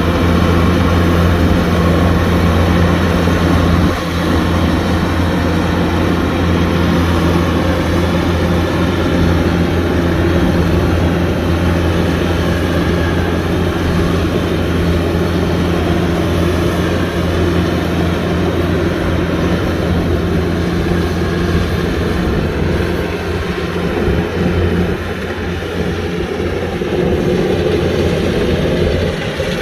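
Kubota DC-105X combine harvester's diesel engine running steadily with an even hum, dipping briefly about four seconds in and easing a little near the end.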